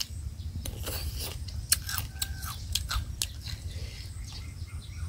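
Close-up chewing of a crunchy santol salad with crispy fish: irregular crunches and wet mouth clicks, the sharpest about a second and a half in.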